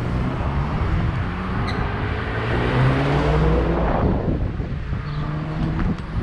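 Suzuki GSX-R1000 K3 inline-four running through a Two Brothers exhaust and accelerating, its pitch rising over a couple of seconds. The revs break off sharply about four seconds in, then pick up at a steadier pitch. The listener hears a slight hiccup in it, which he puts down to a sensor.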